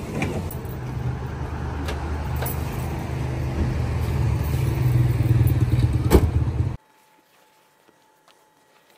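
A vehicle's low, steady rumble with a few light clicks. It grows gradually louder, then cuts off abruptly about seven seconds in.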